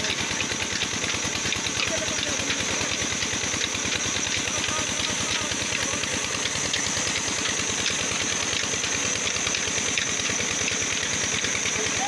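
Stationary engine powering a band-saw mill, running steadily with a rapid even beat while the saw is not cutting.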